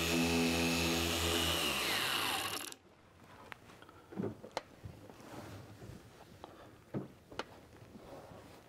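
Electric dual-action orbital polisher with a foam compounding pad running steadily, then switched off about two seconds in, its motor whine falling in pitch as it spins down and stops. After that there are only a few faint knocks and handling sounds.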